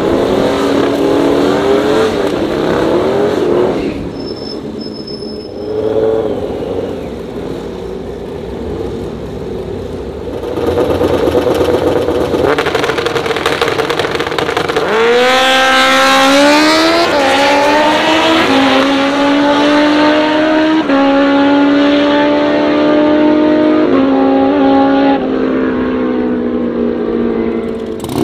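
Turbocharged Harley-Davidson Sportster drag bike revving hard through a smoky burnout, then quieter while staging. About fifteen seconds in it launches alongside another motorcycle, and the engine pitch climbs sharply and steps up through several upshifts before fading down the track.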